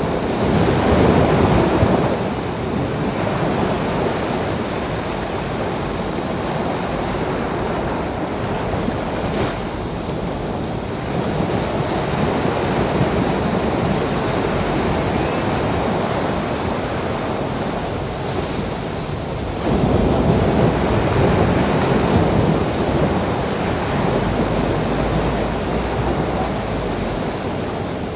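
Ocean surf: waves washing onto a shore in a continuous rush. It swells louder near the start and again about two-thirds of the way through.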